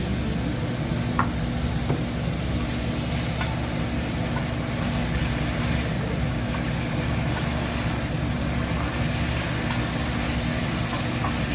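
Food sizzling on a hibachi griddle over a steady low hum, with a few sharp clicks of metal utensils on the griddle.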